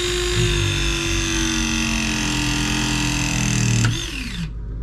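RIDGID battery press tool crimping a fitting onto a copper pipe: its motor whines with several steady tones, its pitch sinking slowly as the jaws close under load. About four seconds in it releases with a short rising-then-falling whine and stops.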